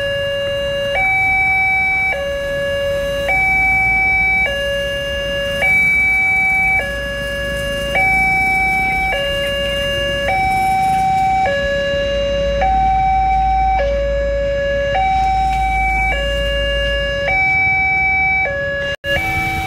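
Railway level crossing warning alarm sounding a two-tone high–low signal. The two pitches alternate about once a second while the crossing is closed for an approaching train.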